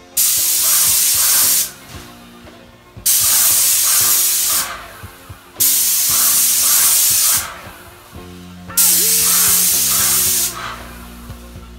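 Graco 390 airless paint sprayer gun spraying paint in four bursts of about one and a half seconds each: a loud hiss that starts and stops sharply as the trigger is pulled and released for each pass across the wall.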